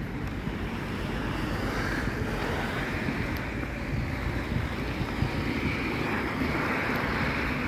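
Wind blowing across a handheld phone's microphone: a steady, deep rushing noise.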